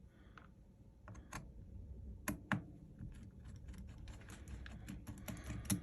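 Scattered small clicks and taps, a few sharper than the rest, from hand tools and small parts being handled while a smartphone is taken apart.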